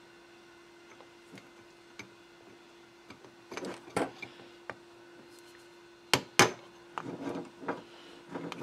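Ball-peen hammer tapping a drift to drive the gudgeon pin out of an old piston, metal striking metal. A few light taps about three and a half seconds in, two sharp strikes around six seconds, then a run of lighter taps.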